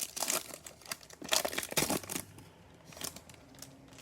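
Foil wrapper of a Bowman baseball card pack crinkling and tearing in the hands, in a few short bursts, as a new pack is opened.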